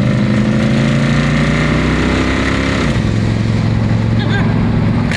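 1963 Plymouth Belvedere wagon's engine pulling hard under acceleration, its pitch rising steadily for about three seconds. The pitch then drops suddenly as the push-button automatic upshifts, and the engine carries on at a lower, steady pitch.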